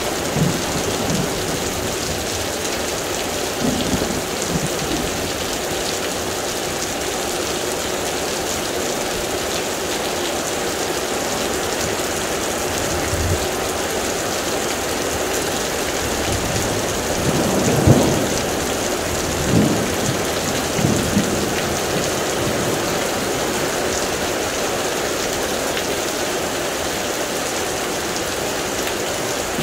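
Heavy rain pouring steadily, with a few rolls of thunder through it; the loudest swells to a peak about eighteen seconds in, followed by two shorter ones.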